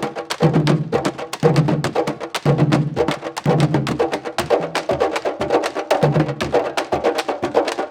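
Candombe drumming: a dense rhythm of stick strikes on wood and drumheads, with a deeper drum sounding about once a second.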